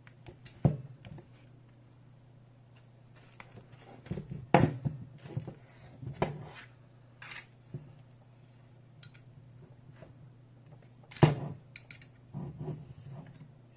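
Aluminium articulated tablet-holder arm being handled and adjusted by hand: scattered metal clicks and clinks as its joints and knob are worked, with louder knocks about a second in, about halfway, and toward the end.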